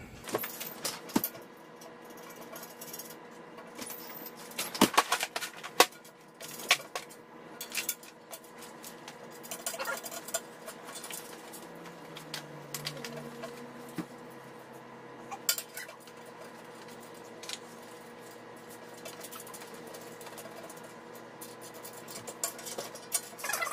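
Metal stand parts and hardware of a scroll bandsaw being handled and shifted in their cardboard shipping box: irregular metal clinks, knocks and rattles, busiest about five seconds in.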